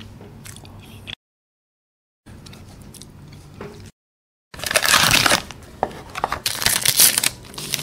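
Faint room noise broken by two short dead-silent gaps, then about four and a half seconds in a loud, close-miked run of dense crinkling and crunching from snack eating and handling of snack packaging.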